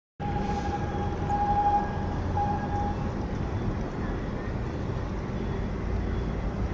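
Steady low rumble with a faint hum underneath, starting abruptly a moment in, and a thin high tone that comes and goes during the first three seconds.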